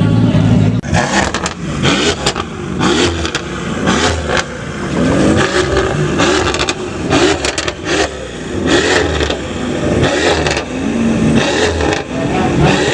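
Performance car engine revved repeatedly in short blips, the pitch rising and falling each time, with sharp exhaust pops and crackles between the revs. A steady engine note runs for under a second before the revving starts.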